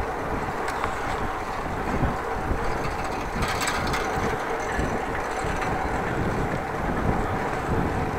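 Bicycle riding noise: wind buffeting the microphone over the steady rolling and rattle of the moving bike, with a brief cluster of clicks about three and a half seconds in.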